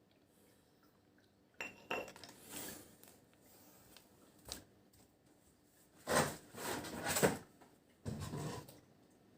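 Dishes and utensils clinking and clattering in several short bursts, the busiest stretch near the end.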